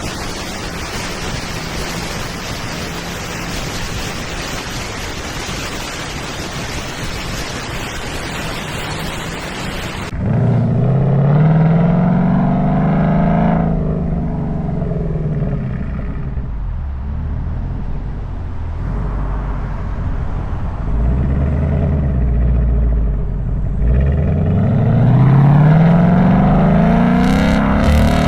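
Steady rushing wind noise on the unshielded microphone for about ten seconds, cutting off suddenly. Then the Ford Mustang GT's V8 engine accelerating, rising in pitch, easing back, and rising again near the end.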